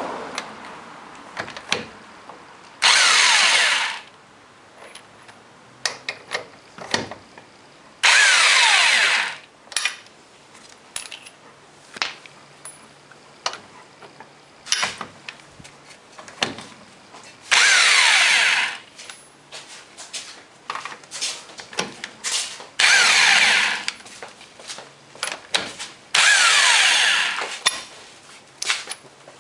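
A power tool fitted with a socket runs in five bursts of about a second each, spinning lug nuts off a wheel. Between the bursts come short clinks and clicks of nuts and tools.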